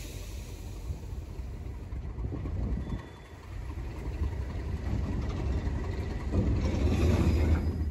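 Tank wagons of a freight train rolling slowly past, wheels rumbling on the rails. Near the end a diesel locomotive's low engine throb grows louder as it draws close.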